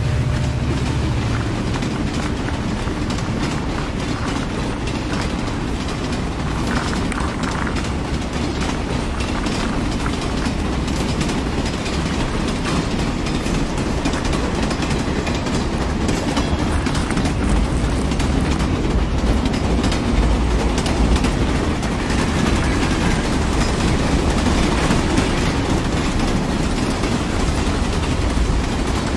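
A train running on its track: a steady rumble with the rapid, irregular clickety-clack of wheels over the rails.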